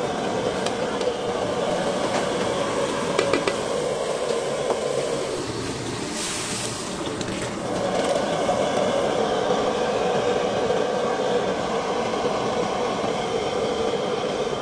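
Steady roar of a large wok of spicy red seafood sauce cooking hard over high heat, boiling and steaming, with a short hiss about six seconds in.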